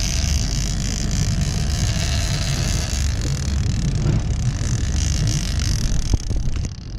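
Steady low noise aboard a fishing boat: the boat's motor running and wind buffeting the action-camera microphone, with a few light knocks near the end.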